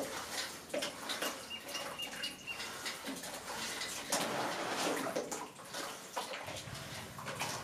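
Wet sloshing and dripping as cotton fuse threads are pulled through a metal pot of gunpowder paste and lifted out, with many small splashes and clicks.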